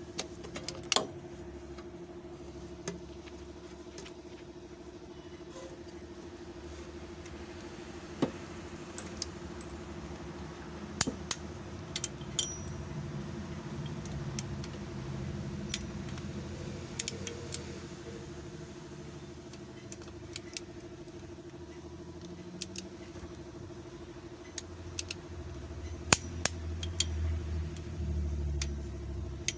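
Sharp metallic clicks and clinks from a socket wrench working on cylinder head bolts as they are torqued, over a steady background hum.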